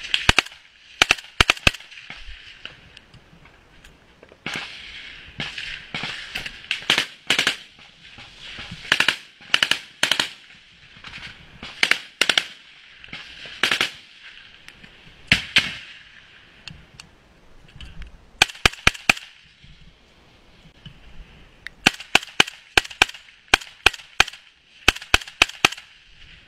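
Rifle gunfire at close range: single shots and short strings of shots in groups every second or two, a quick string of about five near the middle and a run of steady shots near the end.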